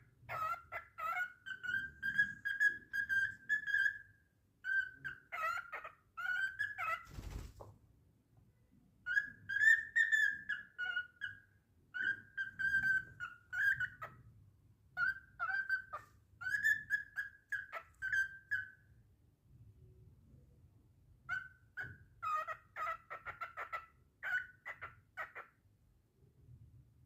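Cockatiel whistling and chirping in about six short bursts of calls, with one sharp knock about seven seconds in.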